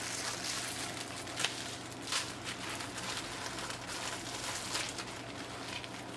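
A diamond painting canvas and its plastic film and paper rustling and crinkling as they are handled and rolled up by hand, with a few sharper crackles.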